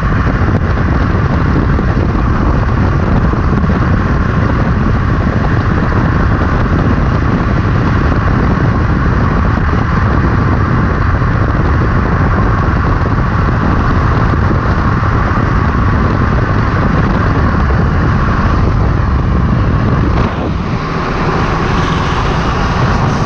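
Wind rushing over the microphone and wheels rolling on asphalt as an unpowered drift trike descends at speed, a loud steady roar that eases slightly near the end.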